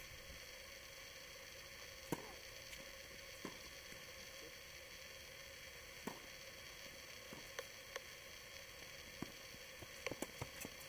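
Faint tennis balls struck by rackets and bouncing on a hard court: single sharp pops a second or two apart, then a quick cluster of hits and bounces about ten seconds in, over a steady faint hum.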